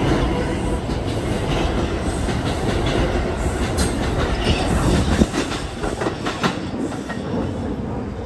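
R142 subway train pulling out of the station past the platform, a steady rumble with its wheels clacking over the rail joints, several sharp clacks a little past halfway, easing off slightly as the last car moves away.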